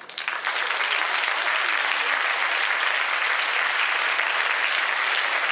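Audience applauding: a few scattered claps that swell within half a second into steady, dense clapping.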